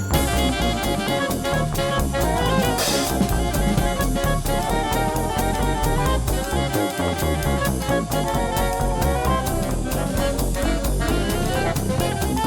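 Background music: upbeat jazz with brass, saxophone and a drum kit keeping a steady beat.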